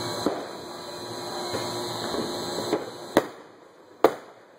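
Aerial fireworks exploding. A few faint pops come over a steady background, then two sharp bangs about a second apart near the end, the second the loudest.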